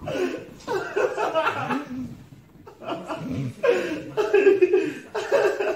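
A person laughing in several bursts with short pauses between them.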